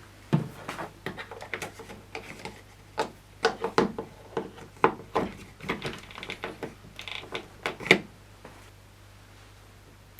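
Irregular series of sharp clicks and knocks, like hard plastic parts being handled and set down, over a faint steady low hum; they stop about eight seconds in.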